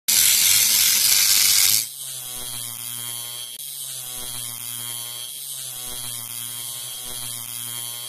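A homemade mini grinder, a 775 DC motor with a small cutting disc, cuts into a thin metal sheet with a loud, harsh grinding hiss. About two seconds in, the cut stops and the motor runs free with the disc spinning, a steady electric hum.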